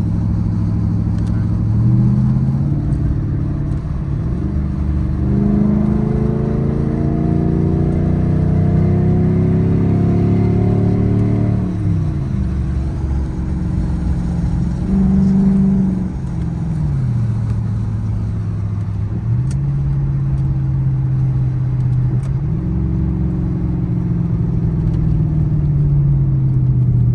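The Lexus GS400's 4.0-litre V8 pulls while driving. Its pitch climbs steadily for several seconds and drops suddenly at each gear change, with further shorter rises and drops later on.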